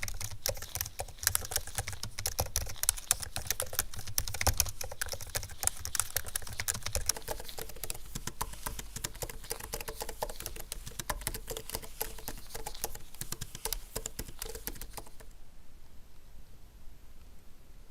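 Typing on an Apple Magic Keyboard for iPad Pro: a fast, continuous run of key clicks that stops about fifteen seconds in.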